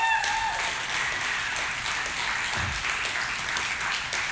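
Congregation applauding, a dense steady clapping; a held musical chord dies away just as it starts.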